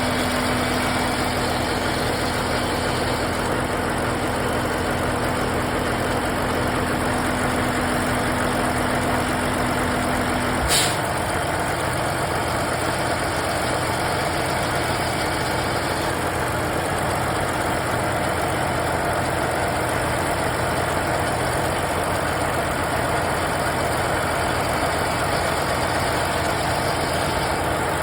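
Truck engine idling steadily. A steady low tone sounds over it and cuts off abruptly with a sharp click about eleven seconds in; the idle carries on.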